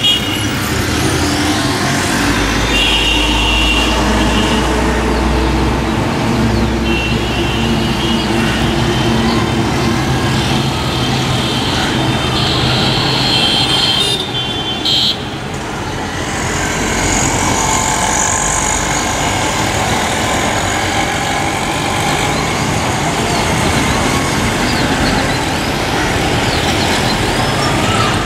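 Steady road traffic noise, with a deeper rumble of a passing vehicle a few seconds in and a few brief high tones.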